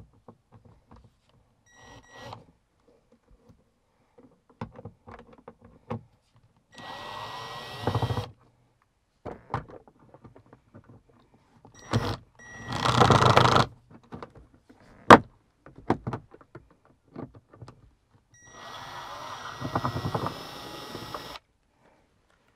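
Cordless drill-driver backing out the Phillips-head screws of a vehicle's interior grab handle, running in three bursts of a few seconds each, the middle one loudest. Small clicks and knocks of the handle and trim come between the bursts, with one sharp click between the second and third.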